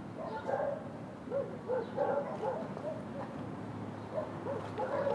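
A dog barking over and over in short barks, a few to a second at times, with small gaps in between.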